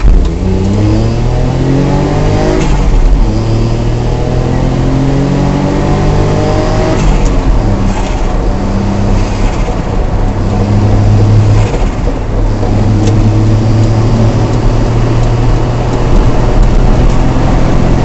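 Vehicle engine accelerating, its pitch climbing through two rises over the first seven seconds, then running steadily at speed with tyre and road noise, heard from inside the cabin.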